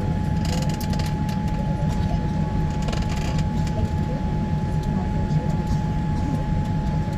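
Steady rumble inside a moving passenger vehicle, with a constant whine, scattered rattles and clicks, and two brief hisses about half a second in and about three seconds in.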